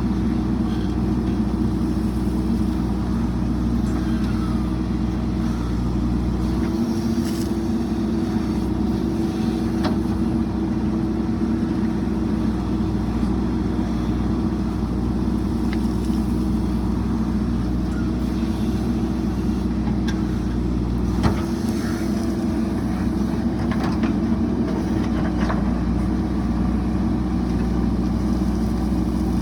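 JCB 3DX backhoe loader's diesel engine running steadily at work, its note shifting about seven seconds in and again about twenty-one seconds in, with a few faint clanks.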